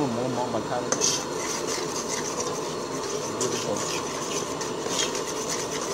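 Metal ladle stirring curry paste into coconut milk in an aluminium pot, with irregular short scrapes against the pot over a steady hiss.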